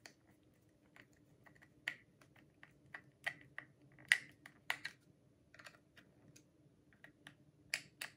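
Irregular small clicks and taps of hands handling a cordless hair clipper and plugging in its power cord, with a faint steady hum beneath.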